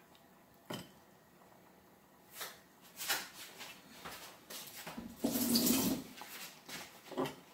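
Kitchen handling sounds of utensils or containers: a sharp knock about a second in, a few clinks, then a louder rattling scrape lasting under a second just past the middle, and another knock near the end.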